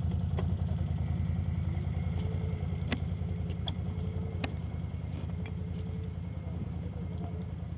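ATV engine running at low revs with a steady, pulsing rumble, easing a little in the second half. A few sharp clicks break in, the clearest about three seconds in.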